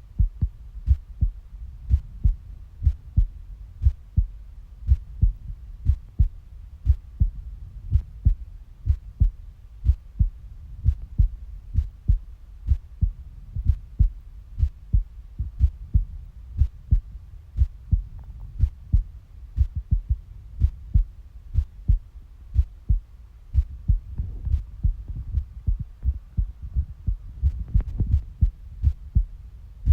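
Human heartbeat: low beats in close pairs, the lub-dub of each heartbeat, repeating at a steady rate, with a faint steady hum underneath.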